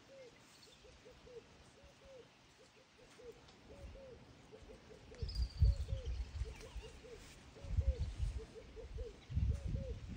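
A bird calling over and over in short, low, arched notes, often in quick runs of two or three. From about halfway through, bouts of low rumbling noise come in, louder than the calls.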